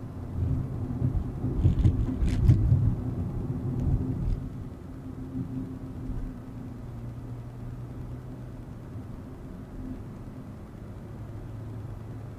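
Volkswagen Vento with a 1.2 TSI turbocharged four-cylinder engine driving: low engine and road rumble, heavier and uneven for the first few seconds with a few sharp knocks about two seconds in, then settling into a steady engine hum.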